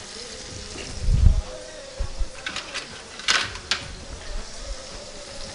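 Cookware and utensils being handled in a kitchen: a dull thump about a second in, a couple of knocks, and a cluster of sharp clicks and clinks a little after three seconds, over a steady hum.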